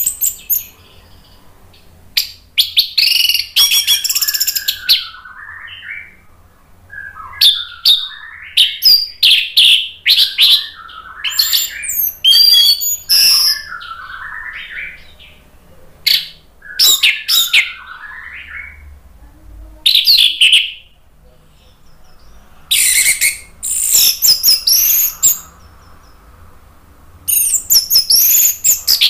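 Orange-headed thrush (anis merah) in full, loud song. It sings phrases of rapid, high, varied notes, each a second or two long, with short pauses between them.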